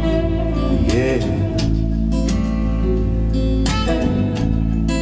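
A song with guitar playing back through KEF Q100 loudspeakers, with a sung 'yeah' about a second in.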